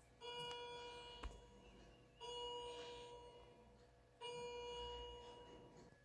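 Three identical chime-like musical notes, one every two seconds. Each starts suddenly and fades slowly. A sharp click comes a little after the first.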